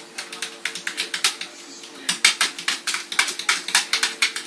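A cat pawing at the lid of a round fish tank, its claws clicking and tapping on it in a quick, irregular run of taps that grows busier in the second half.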